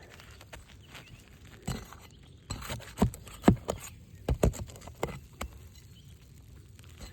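Irregular knocks and short scrapes on asphalt roof shingles as the nails of a damaged three-tab shingle are worked loose for removal.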